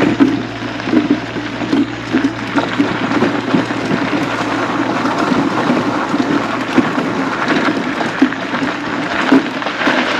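Mobility scooter rolling along a gravel trail: a continuous crackling crunch of its tires on the gravel, mixed with the rattle of the scooter.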